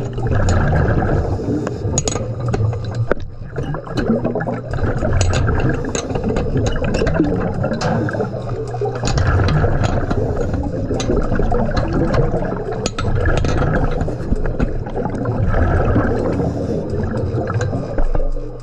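Underwater bubbling and gurgling of a diver's breathing and exhaust bubbles, swelling and easing every few seconds, with scattered sharp clicks and knocks from handling gear on the metal flange.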